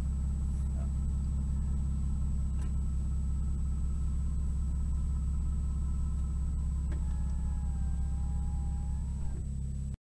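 Car engine idling steadily while the car stands still, heard from inside the cabin as a low, even rumble.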